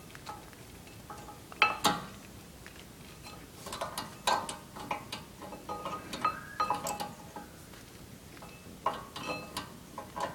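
Scattered light metallic clinks and clicks as tools and brake parts are handled at the wheel, coming in short clusters a few seconds apart, some with a brief ring.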